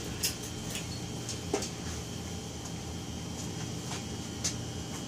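Steady workshop room hum with a thin, faint high-pitched whine, broken by a few light clicks and taps.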